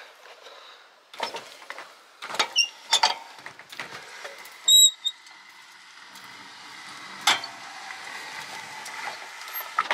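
RV awning being let out by hand, its air spring removed: clicks and knocks from the metal arms and roller tube, with a brief ringing squeak about five seconds in. A steady mechanical noise builds from about six seconds.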